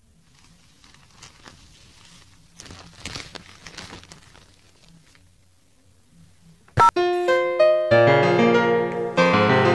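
Soft paper crinkling and rustling, louder for a moment about three seconds in, then a sharp click about seven seconds in and piano music starting, with fuller chords a second later.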